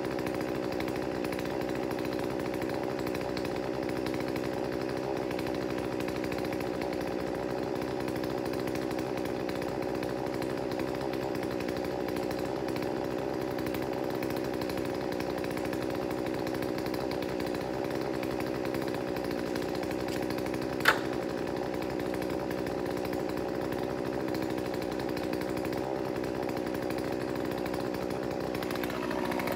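Two-stroke chainsaw idling steadily, with one sharp click about two-thirds of the way through; its engine note shifts and gets a little louder right at the end.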